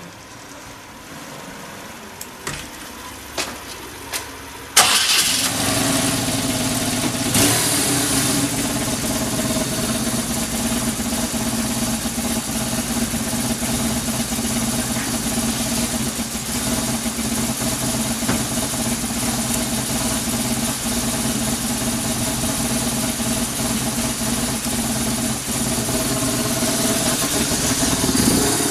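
BMW R1100R's boxer twin engine: a few light clicks, then about five seconds in it cranks and catches at once on the electric starter and settles into a steady idle.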